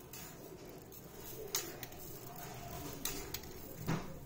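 Sugar being spooned into a stainless-steel mixer jar: a few light clicks of a plastic spoon tapping against the steel, the loudest near the end.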